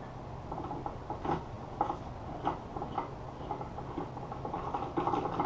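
Scattered light clicks, taps and rattles of small metal parts and tools being handled while a manual transmission is taken apart on a workbench, busiest near the end.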